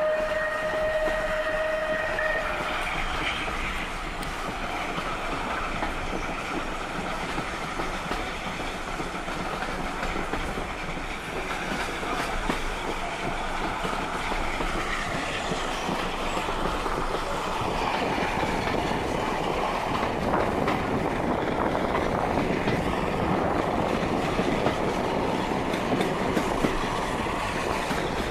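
Heritage railway train running along the line, a steady broad running noise that grows a little louder in the second half. A steady high tone sounds for about two seconds at the start.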